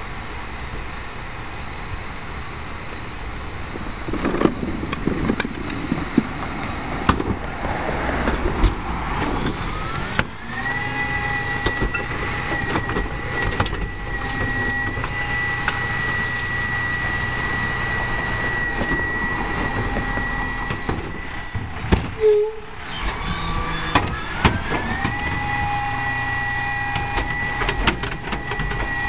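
Rear-loader garbage truck (Peterbilt 320 with a Heil 5000 body) working its hydraulics. Loud bangs and clunks come a few seconds in. About ten seconds in, the running engine and a hydraulic whine rise in pitch and hold steady and high. They drop away briefly just past twenty seconds, then rise and hold again while the cart tipper lifts and dumps a wheeled cart.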